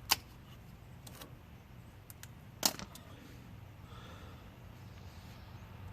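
Zip tie snipped with cutters: a sharp snap right at the start, then light clicks and rattles of hand tools, and another sharp snap about two and a half seconds in.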